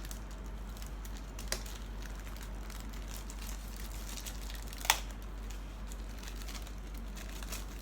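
Plastic model-kit parts being handled: faint crinkling and rustling of plastic, with a sharp click about a second and a half in and a louder click about five seconds in, over a steady low hum.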